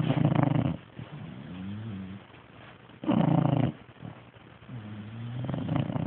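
A sleeping pet snoring: a loud rasping snore about every three seconds, with a quieter pitched, wavering whistle-like sound between the snores.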